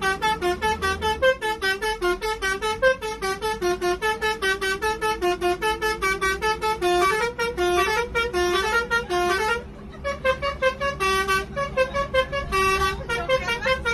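A multi-tone musical vehicle horn of the Indonesian 'telolet' kind, playing a fast tune of short notes that jump up and down in pitch, about four to five notes a second. It breaks off briefly about ten seconds in, then starts again, over a steady low hum.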